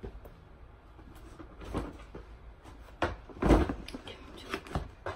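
A few knocks and thumps from shoes and a cardboard shoebox being handled and set down on the floor, the loudest about three and a half seconds in.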